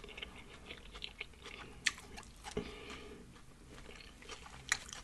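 A person chewing food close to the microphone: soft wet smacks and mouth clicks, with sharper clicks about two seconds in and near the end.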